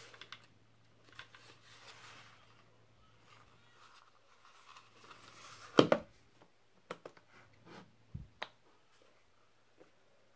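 Handling noise on a 3D-printed plastic RC boat hull: soft rubbing and rustling of hands on the plastic, one sharp knock about six seconds in as the hull is set down on the table, then a few light clicks as its wires are handled.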